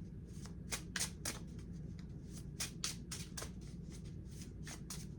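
A deck of tarot cards being shuffled by hand: a run of soft, quick papery swishes, a dozen or so, unevenly spaced.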